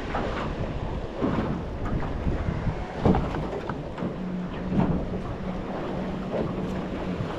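Wind buffeting the microphone and small waves slapping against a small boat's hull, with a sharper slap about three seconds in. A low steady hum runs through the second half.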